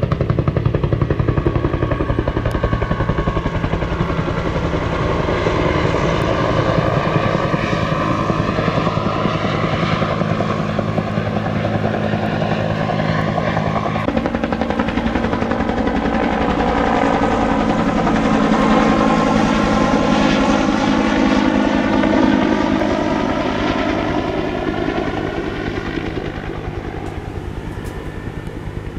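Helicopter with a two-bladed main rotor flying over, its steady rotor beat loud, the pitch slowly sliding up and down as it circles, fading towards the end.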